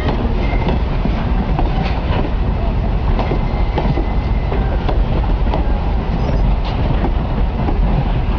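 Strasburg Rail Road train rolling past close by: a steady heavy rumble of the cars with irregular clicks of wheels over rail joints and a few brief, faint wheel squeals.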